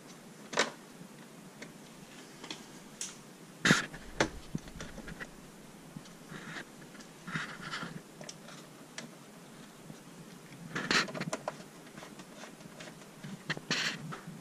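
Scattered clicks, taps and short scrapes of a screwdriver and hands on an espresso machine's plastic housing, with sharper knocks about 4 s and 11 s in.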